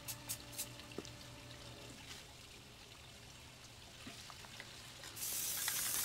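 Valspar aerosol spray paint can hissing as paint is sprayed through a stencil: a few short spurts at the start, then one steady burst of about a second near the end.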